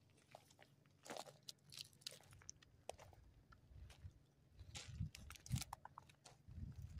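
Faint, irregular clicking and crunching from a slowly rolling freight locomotive's wheels on the rails, over a low steady hum. A few heavier low thumps come about five seconds in and again near the end.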